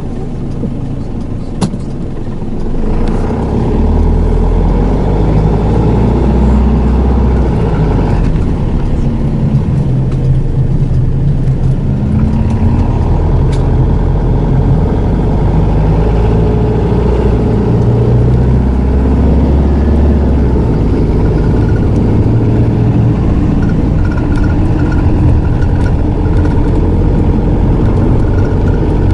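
Hino Liesse II minibus (SDG-XZB50M) running, its diesel engine and five-speed automatic pulling away about three seconds in and then driving on. The engine note rises and falls as it accelerates and eases off.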